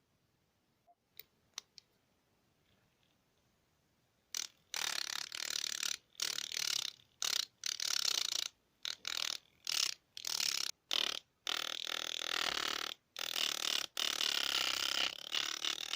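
Homemade mini angle grinder, a small DC motor driving a sandpaper disc, run in a long series of short bursts, each cutting off abruptly, after a few light clicks about a second in.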